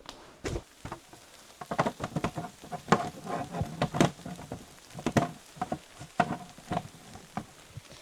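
Irregular taps, clicks and knocks, several a second, some with a brief ringing tone near the middle.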